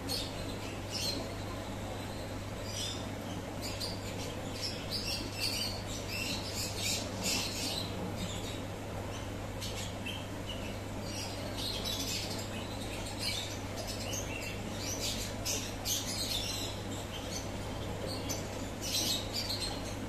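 Steady low hum of aquarium equipment, with many short, high-pitched chirps or squeaks scattered irregularly through it.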